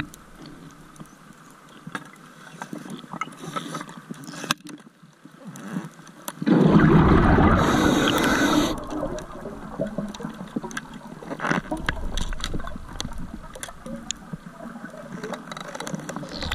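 Underwater ambience with faint scattered clicks and crackles, then about halfway through a loud rush of a diver's exhaled bubbles from a scuba regulator, lasting about two seconds before settling back to a low rumble.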